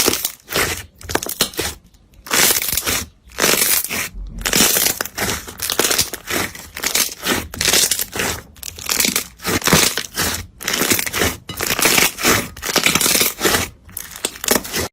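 Crunchy slime being squeezed and pressed, crackling and crunching in a run of squeezes with short breaks between them.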